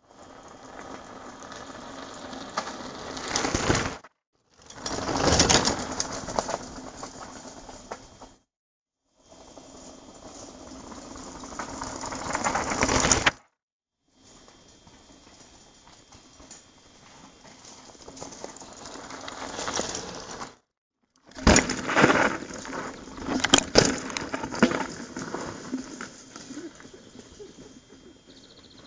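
Mountain bikes coming down a loose, rocky trail, heard as several short passes. Each pass is a rush of tyres crunching over stones that swells as a rider comes close and then cuts off abruptly. The last pass has sharp knocks of rocks and the bike rattling.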